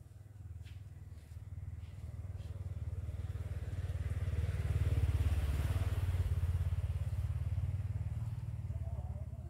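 A motor vehicle passing: a low engine rumble that builds to its loudest about five to six seconds in, then fades.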